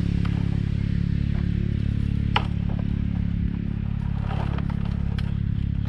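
A small engine running steadily at a constant speed, with a sharp knock about two and a half seconds in and a few lighter clatters a little later.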